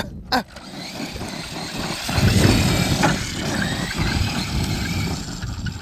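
Electric 1/8-scale RC monster truck running across dirt under throttle, a short knock just after the start, then its motor and tyres on the dirt growing louder from about two seconds in.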